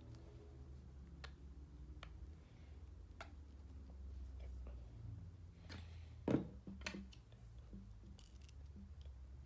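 Faint, scattered light clicks and handling noises from hand work on heavy canvas, with a sharper knock a little past the middle and a smaller one just after.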